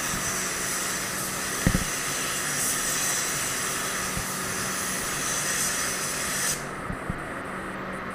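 Gravity-feed spray gun hissing steadily as it sprays top coat, then cutting off suddenly about six and a half seconds in as spraying stops. A quieter steady rush from the spray booth's air flow goes on underneath, with a brief knock about two seconds in.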